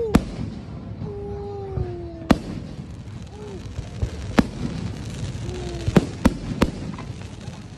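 Aerial fireworks shells bursting in a series of sharp bangs, about six in all, with three in quick succession near the end, over a steady background hubbub.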